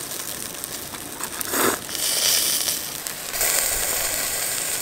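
Chicken pieces sizzling and crackling on a mesh grill over hot charcoal, a steady hiss that grows louder from about two seconds in. A short, sharp burst of noise comes about a second and a half in.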